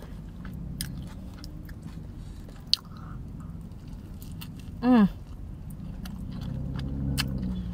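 Close-miked mouth sounds of someone biting into and chewing a consomé-soaked soft-shell birria taco: wet chewing with small clicks, and a short hummed "mm" about five seconds in.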